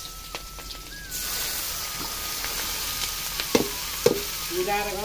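Food sizzling in hot oil in a pan, growing louder about a second in, with two sharp knocks near the end.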